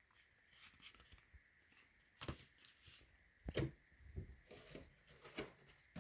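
Faint clicks and light knocks of a plastic model car being handled, with two sharper knocks at about two and three and a half seconds in.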